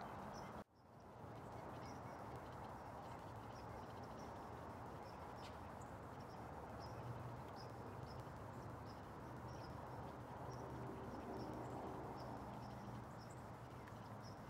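Outdoor ambience: a steady low background hiss with small birds chirping faintly and irregularly. The sound cuts out briefly just under a second in.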